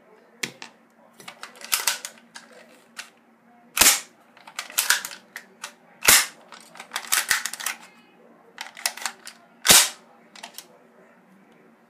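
Sharp plastic clicks and snaps from the parts of a Daisy Powerline 340 BB pistol being handled and fitted together, in irregular clusters, with three louder snaps a few seconds apart.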